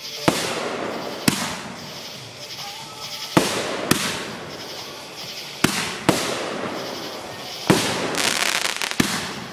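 Aerial firework shells bursting overhead: about eight sharp bangs, several coming in quick pairs, each trailing off in a fading hiss.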